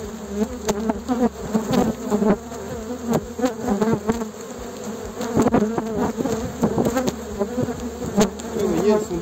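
Honeybee colony buzzing loudly around a freshly opened hive, many bees in flight with a wavering drone: an agitated colony. Many sharp clicks sound through the buzzing.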